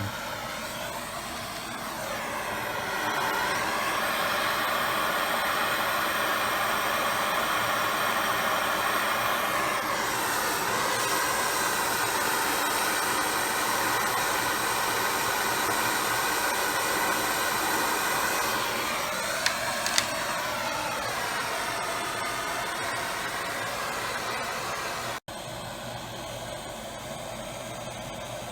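Propane torch flame hissing steadily while heating soldered copper tubing. Its tone shifts a few times as the flame moves. There are two sharp ticks about twenty seconds in, and the hiss drops suddenly to a quieter level near the end.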